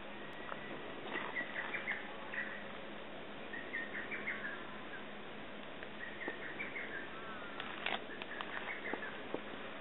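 A bird singing short phrases of bright chirps with a few falling notes, repeated about every two to three seconds, over a faint steady hum. A few sharp clicks come about eight seconds in.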